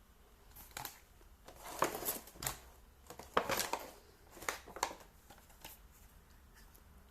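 Packaging being handled: a run of irregular rustles, crinkles and sharp clicks, loudest in the middle, as plastic and cardboard are moved and pulled open.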